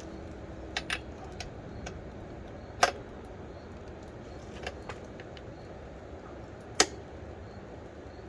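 Scattered sharp metallic clinks and knocks of a breaker bar and socket being worked on a motorcycle's 27 mm rear axle nut to loosen it. There are a few light clicks in the first two seconds and louder single knocks about three and seven seconds in.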